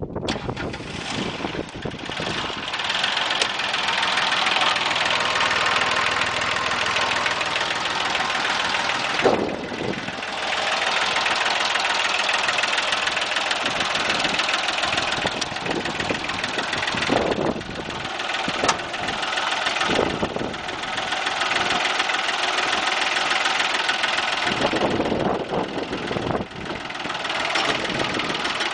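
Mitsubishi MT1601D compact tractor's diesel engine running with a steady clatter, its sound dipping briefly a few times.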